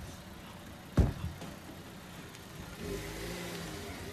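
A single heavy thump about a second in, then a car engine revs from about three seconds in, its pitch rising and falling.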